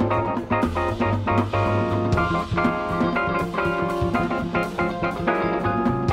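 Jazz quartet playing: electric guitar, keyboard, double bass and drum kit, in quick runs of notes over the bass and drums.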